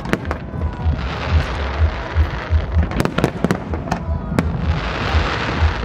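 Fireworks display: aerial shells bursting in quick, irregular bangs, with dense crackling from glitter effects swelling about a second in and again near the end.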